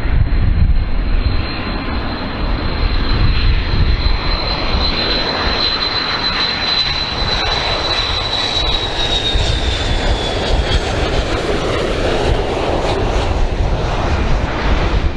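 Boeing 727's three Pratt & Whitney JT8D turbofans on landing approach: a loud, steady jet rumble under a high whine that sinks slightly in pitch and fades about ten seconds in as the jet passes.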